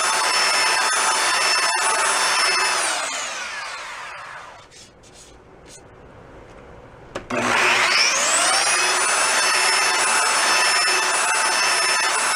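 Handheld electric belt sander running against the painted wooden shell of a 1936 Slingerland snare drum, sanding the old paint down to the wood. About three seconds in it is switched off and winds down, with a few faint clicks in the quiet. About seven seconds in it is switched on again, spins up and goes back to steady sanding.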